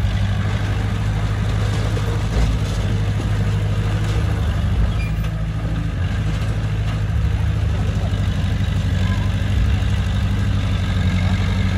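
Heavy diesel engine of earthmoving machinery running steadily, a low, even drone with no marked revving or impacts.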